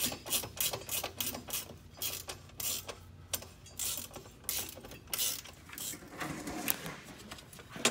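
Hand ratchet wrench clicking as it runs a nut onto a fan shroud bracket bolt, in quick runs of clicks with short breaks between strokes.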